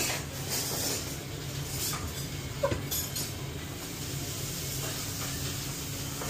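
Steady low hum of a restaurant kitchen's extraction ventilation and equipment, with a few light clinks of plates and utensils a little before the middle.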